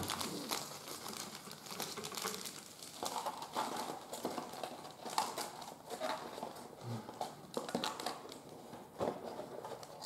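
Trading cards and plastic or foil card-pack wrappers being handled: irregular crinkling with many soft clicks and taps.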